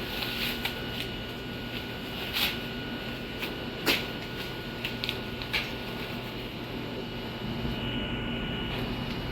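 Steady hum of running air-conditioning machinery with a few sharp clicks and knocks, the loudest about four seconds in.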